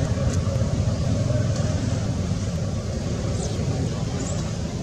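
Steady low outdoor rumble with a few faint, short high chirps over it.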